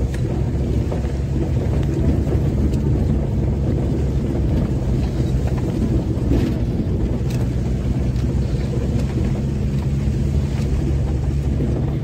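Car driving along a dirt track, heard from inside the cabin: a steady low engine and road rumble, with a few light clicks in the middle.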